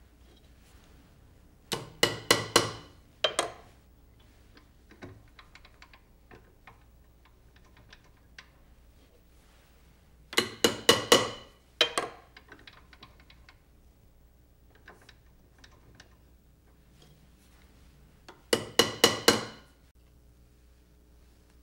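Sharp, ringing metal taps in three quick bursts of four or five strikes each, about eight seconds apart, with faint clicks between: marking bracket shoe hole positions on a banjo rim.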